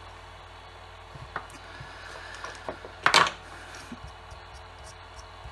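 Small handling knocks as a brushless drill's circuit board and its wiring are moved about on a silicone bench mat, with one louder, short clatter about three seconds in, over a steady low electrical hum.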